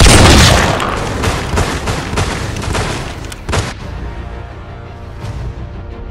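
A loud gunshot boom with a long echoing tail, then a second sharp bang about three and a half seconds in, over background music.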